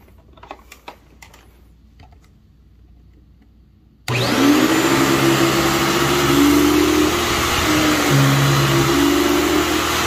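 A few light clicks, then about four seconds in a 1995 Dirt Devil MVP upright vacuum cleaner's 12-amp motor switches on. It spins up with a quick rising whine, then runs loudly and steadily as the vacuum is pushed over carpet, its hum shifting in pitch now and then.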